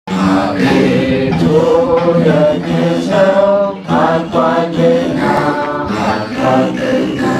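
Several men singing a slow Ethiopian Orthodox hymn together in a chanting style, accompanied by plucked begenas, the large ten-string lyres with their buzzing tone, under a steady low drone.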